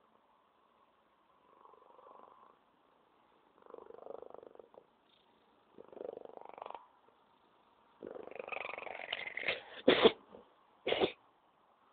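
Ginger house cat purring in separate breaths that grow louder, then two short, sharp sneezes about a second apart near the end.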